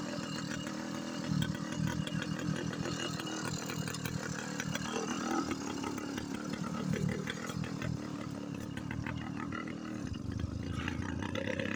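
Small motorbike engine running while under way, with small rises and falls in throttle; the engine is still warming up.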